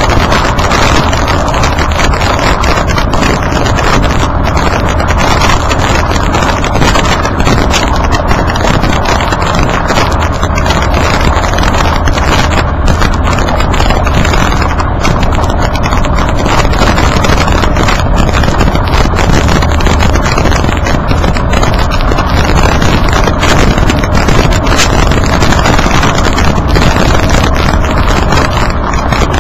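Tyre noise from close behind a Nissan Kix's tyre on a dirt-and-gravel track: a loud steady rumble with wind buffeting the microphone and a constant crackle of clicks.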